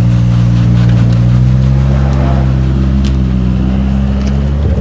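Car engine running at a steady idle close by, loud, its low pitch holding constant.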